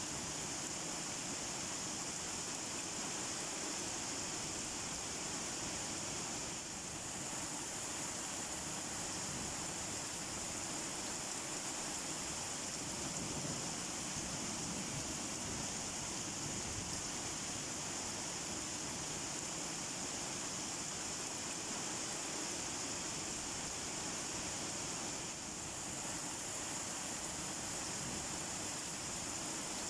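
Steady rain falling, an even, unbroken hiss that is strongest in the high range and dips slightly twice.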